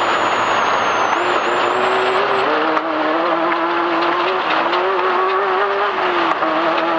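Off-road race vehicle's engine running under way over a dirt track, heard onboard over steady road and wind noise. Its pitch steps down about two and a half seconds in, climbs again, then drops near the end.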